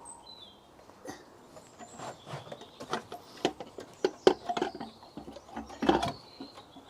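Irregular clicks, taps and knocks of hands lowering a rocker cover with a new gasket onto the engine and settling it in place. The louder knocks come about four and six seconds in.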